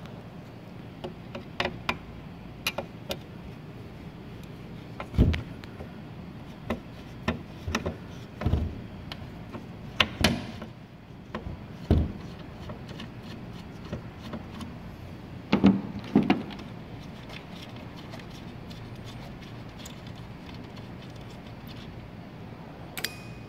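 Scattered clicks and knocks at uneven intervals as a screwdriver turns out the screws holding a factory 6x9 car speaker in its plastic housing, with the housing being handled. A few knocks are louder.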